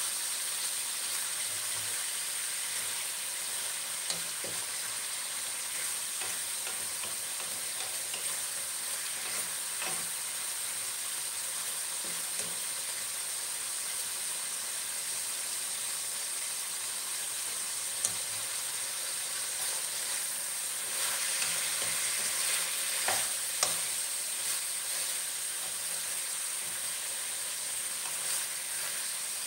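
Cubes of pork shoulder and belly sizzling and frying in a black pan, stirred with a wooden spatula that now and then knocks against the pan. The frying is steady, with a few sharp clicks and a somewhat louder stretch a little past two-thirds of the way through.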